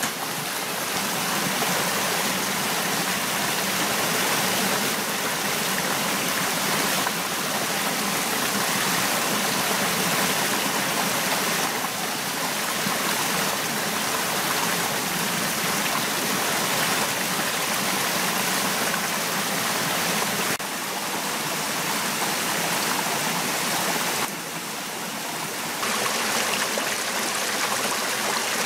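Steady rush of a rocky rainforest stream, a continuous hiss of running water that jumps a little in level a few times.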